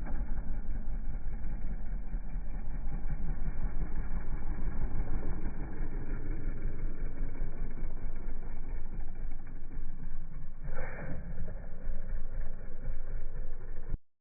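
Kawasaki KLX140RL's small single-cylinder four-stroke engine idling steadily with an even pulse, running on fresh oil after its first oil change. The sound cuts off suddenly near the end.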